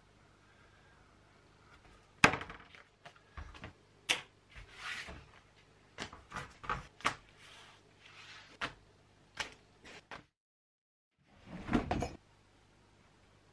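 Paper pattern pieces and small tools handled on a workbench: a sharp knock about two seconds in, the loudest sound, then scattered clicks, taps and paper rustles. The sound drops out completely for about a second near the end, followed by a short burst of rustling.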